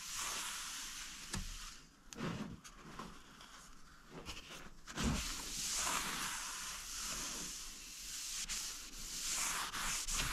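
A cloth rubbing wood wax into an oak chopping board by hand, in repeated back-and-forth strokes that give a soft swishing, with a couple of light knocks.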